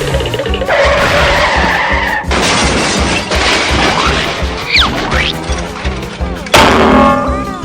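Quick string of cartoon sound effects over a music track with a steady beat: a long skidding screech, a quick rising-and-falling whistle, and a sudden loud crash-like burst near the end.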